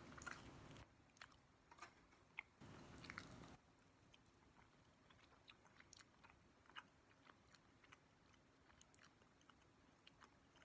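Faint close-up chewing of a mouthful of pulled pork dipped in barbecue sauce, with many small wet mouth clicks. Two brief puffs of noise, each about a second long, come at the start and about three seconds in.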